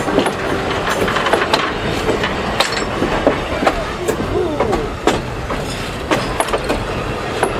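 Railroad passenger coaches rolling past: steel wheels rumble on the rail and click and clank irregularly over joints, with a few short squeaks from the wheels and trucks a few seconds in.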